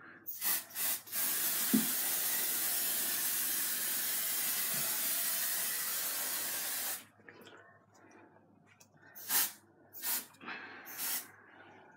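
Aerosol can of red hair colour spray hissing onto hair: two short bursts, then one long steady spray of about six seconds, then a few more short bursts near the end.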